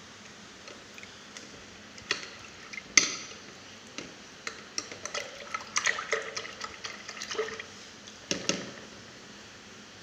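Paintbrushes working in a bucket of thick green paint: wet stirring with brush handles knocking and clattering against the bucket, one sharp knock about three seconds in and a busy run of clatter in the middle.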